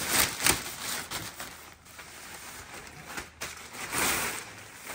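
Black plastic trash bag rustling and crinkling as it is pulled off a framed picture, in uneven bursts, loudest at the start and again about four seconds in.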